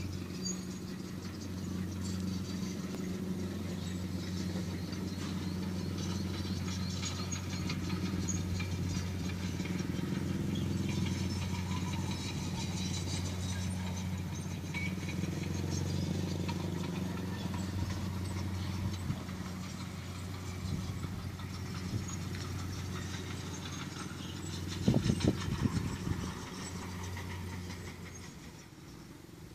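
Steady low motor hum, two level tones one above the other, that stops near the end. A few loud knocks come about three seconds before it stops.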